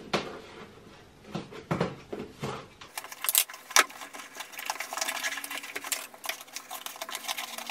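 Scissors scraping along packing tape on a cardboard box in a few strokes. About three seconds in, the tape is peeled off the cardboard with a long run of rapid crackling.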